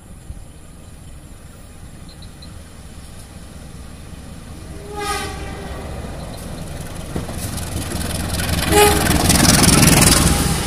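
Indonesian diesel-electric passenger locomotive approaching and passing close by. It sounds its horn in one blast about halfway through and a shorter blast near the end. The engine and the wheels on the rails swell to their loudest as it comes alongside.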